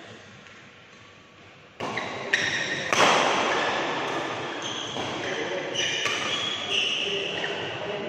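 Badminton rally: rackets striking a shuttlecock with sharp cracks, the hardest hit about three seconds in, ringing in the hall, with shoes squeaking on the court floor.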